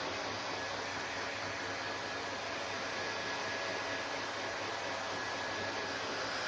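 Hair dryer blowing steadily, an even rush of air with a faint high whine from its motor.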